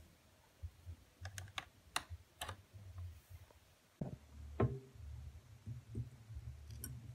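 Faint, scattered clicks and taps of hands handling a phone charging cable and a small plastic sleeve, with one louder knock a little past the middle and a low hum underneath.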